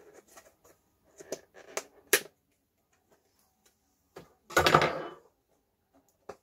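Handling noises: a run of light clicks and taps, then about four and a half seconds in a louder scraping rustle lasting under a second, and one more click near the end.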